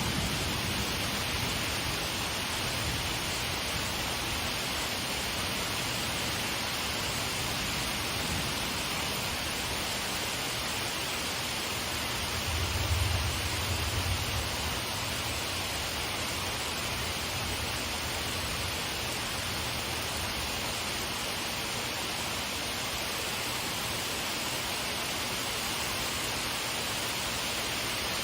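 Steady rain shower falling, an even hiss, with a brief low rumble about halfway through.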